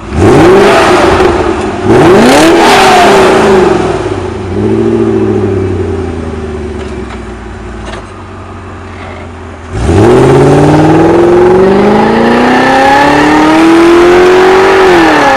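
Mercedes-Benz E400 engine being revved: three quick throttle blips, each rising in pitch and falling back, then about ten seconds in a longer rev that climbs steadily for about five seconds before dropping near the end.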